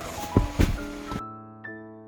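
Background piano-style music. During the first second a few sharp knocks sound over it, then all the other sound cuts off abruptly, leaving only the music.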